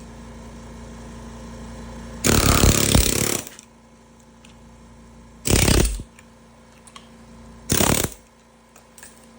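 Pneumatic air hammer running in three bursts, driven into wood to split it: a first burst of about a second, then two shorter ones.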